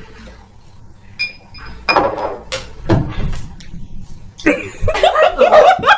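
A man gagging and retching after forcing down milk, in short voice-like bouts that grow loudest in the last second and a half.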